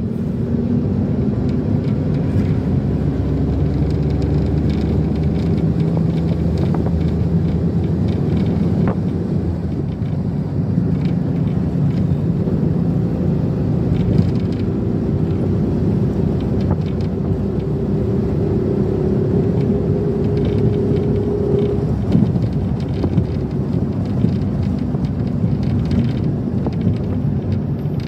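Steady rumble and engine hum of a moving vehicle heard from inside, the engine note drifting slowly up and down.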